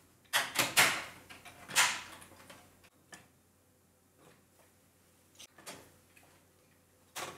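Plastic chassis parts of a Power Macintosh 8100 being handled and fitted back together: a quick run of clattering clicks and rattles in the first two seconds, scattered light ticks, and a sharp click near the end.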